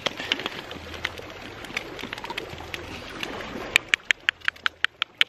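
Eggs frying in butter in a pan on a portable gas burner, sizzling and spitting with scattered small pops. Near the end comes a quick run of about nine sharp clicks, roughly six a second.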